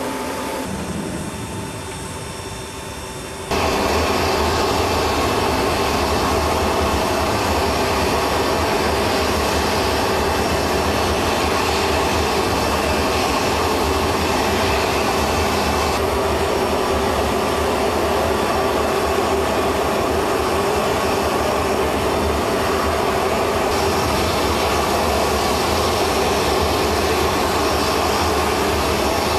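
Helicopter turbine engines and rotor running, a steady dense noise that jumps suddenly louder about three and a half seconds in and shifts slightly in tone twice later on.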